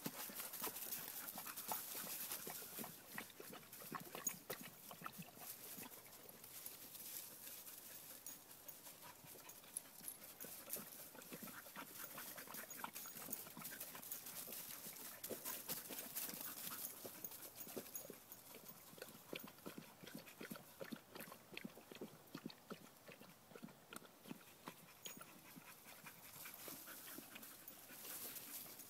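A dog panting and moving about, with many small clicks and scuffs.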